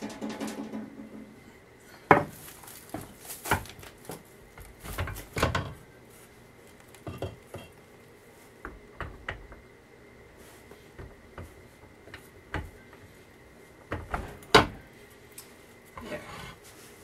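Metal clanks and knocks as a transmission housing is set down on an aluminium motor-mount plate and shifted to line it up with the electric motor's shaft. The knocks come irregularly, loudest about two seconds in and again near the end.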